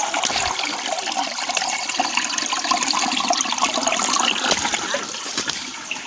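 Shallow stream water running steadily over rocks close to the microphone.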